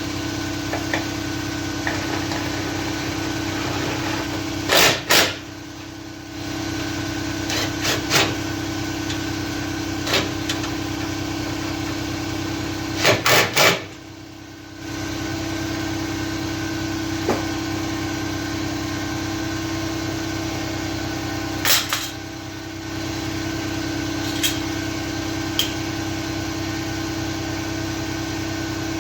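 Steady mechanical hum in a workshop, broken by sharp knocks and clinks of hand tools on metal. A quick cluster of three knocks comes about halfway through. The hum cuts out briefly three times.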